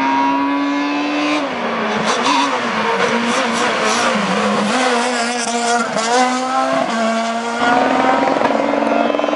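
Ford Fiesta S2000 rally car's engine at racing speed on a tarmac stage: the pitch drops and climbs again and again as it brakes and changes gear through a bend, then revs hard as it accelerates. About three-quarters of the way through, the sound jumps to a louder, steady engine note as the footage cuts to another car.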